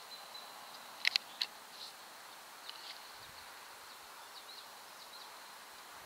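Faint outdoor ambience: a steady high thin tone under a soft hiss, with a few short, sharp high chirps, the loudest cluster about a second in.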